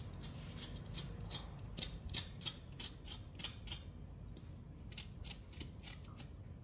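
Large kitchen knife cutting through a knob of fresh ginger held in the hand: a quick, uneven series of short crisp cuts, about two to three a second.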